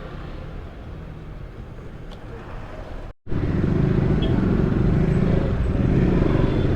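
Road traffic noise, then, after a cut about three seconds in, a louder, steady motor vehicle engine running with a low hum.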